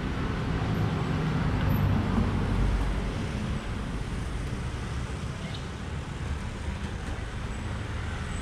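Road traffic noise: a low, steady rumble of passing vehicles that grows louder about two seconds in and eases off again after about three.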